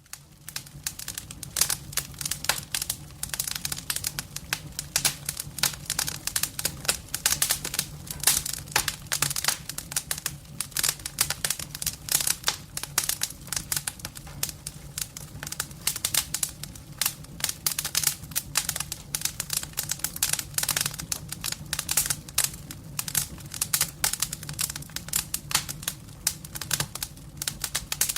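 Campfire burning: wood crackling and popping in dense, irregular snaps over a steady low rumble of the flames.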